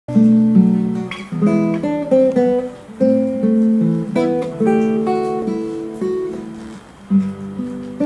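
Nylon-string classical guitar playing an instrumental introduction: fingerpicked chords, each note struck and left to ring and fade, with a new phrase starting about every second or two.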